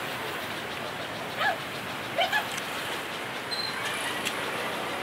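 Steady outdoor street noise with three short, sharp cries, one about a second and a half in and two close together just after two seconds, and a brief thin high squeal a little later.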